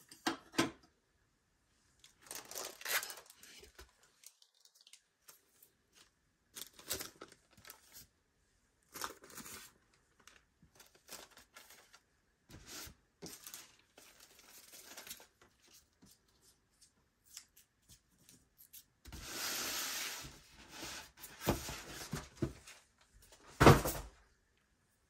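Styrofoam packing insert and cardboard box being handled: scattered short rustles and scrapes, a longer rub of foam about three-quarters of the way through, and a sharp knock near the end.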